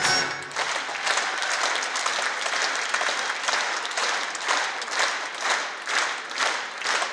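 Concert audience applauding as the band's music stops, the applause turning into rhythmic clapping in unison at about two claps a second from the middle on.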